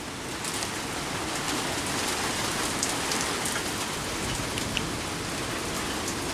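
Thunderstorm rain pouring down in a steady hiss, with scattered drips and taps, getting a little louder about half a second in.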